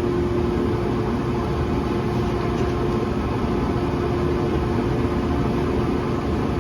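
Workshop dust collector running, a steady drone with a constant hum.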